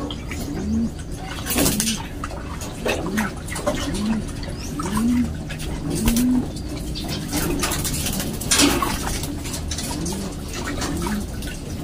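Racing pigeons cooing in the loft: a string of short, low coos that rise and fall, about one a second. Water splashes in a stainless-steel basin as a pigeon is bathed, loudest about one and a half and eight and a half seconds in.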